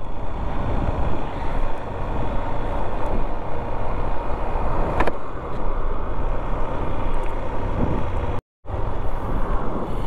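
Motorcycle riding on a mountain road: steady engine and road noise. The sound cuts out for a moment about eight and a half seconds in.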